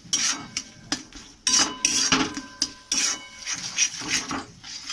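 Spatula scraping and stirring thick cooked pumpkin-leaf paste around a metal kadai, in irregular scraping strokes about two a second with a faint metallic ring. The salt has just been added and the paste is nearly done.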